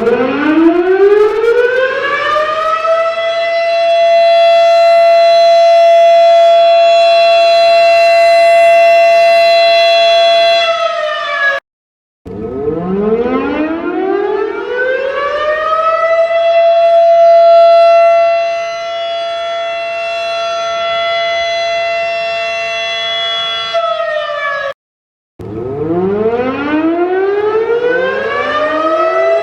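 Federal Sign & Signal Model 7 tornado siren winding up, its pitch rising over about three seconds to a steady high wail that holds, then cutting off suddenly. This happens twice, and a third wind-up starts near the end with several rising tones overlapping.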